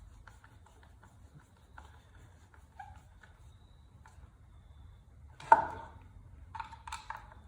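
Light clicks and taps from car-speaker parts being handled, with one sharp knock and a brief ring about five and a half seconds in, then a quick run of clicks near the end.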